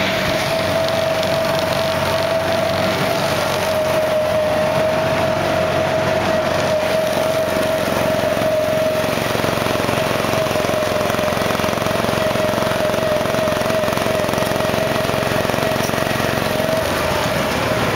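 Small engine of a ride-on amusement-park car running at a steady speed, an even drone that holds one pitch over a wash of running noise.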